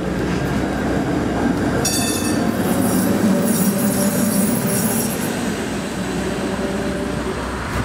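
Rail streetcar passing close by, with a high wheel squeal about two seconds in, then a few seconds of hissing and rumbling from the rails that ease off toward the end.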